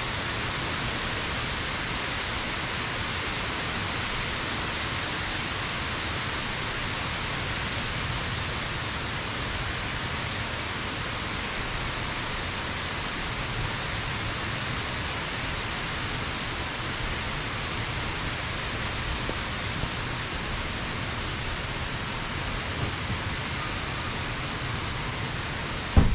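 Steady rain falling: an even, unbroken hiss of rain on surfaces.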